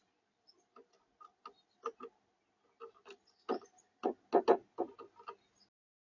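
A chickadee pecking at seed on a plastic feeder tray: irregular sharp taps and clicks, turning into a quicker, louder run of taps about three and a half seconds in.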